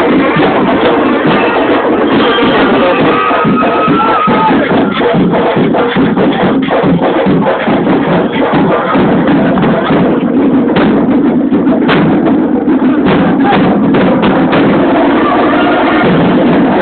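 Band playing, with drums and percussion to the fore in a steady stream of rapid strokes. The percussion thins out for a few seconds past the middle.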